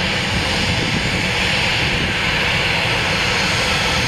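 Jet airplane engines running loud and steady, a continuous rushing noise as an aircraft moves at the airport.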